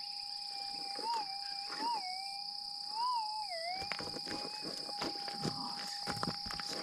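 Minelab GPX 6000 gold detector holding its steady threshold hum, which swells up in pitch three times, about one, two and three seconds in, then dips briefly as the coil passes over a target. Scattered light knocks follow. A steady high insect drone runs underneath.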